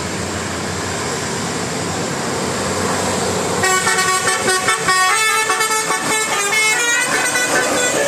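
Telolet horn of a Basuri bus, a multi-tone musical air horn, playing a melody of several stepping notes for about four seconds, starting about three and a half seconds in. Steady road and engine noise runs underneath.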